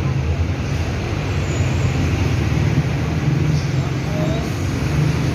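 A steady low engine rumble runs throughout, even in level.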